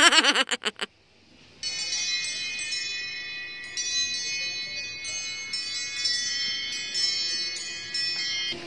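Smartphone alarm ringtone going off, a chiming bell-like melody that plays on steadily and stops just before the end. A brief loud sound comes right at the start, before the alarm.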